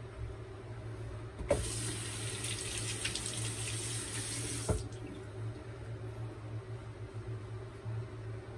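Bathroom tap running into the sink for about three seconds, with a click as it is turned on and another as it is shut off, while the injector razor is rinsed between strokes. A steady low hum runs underneath.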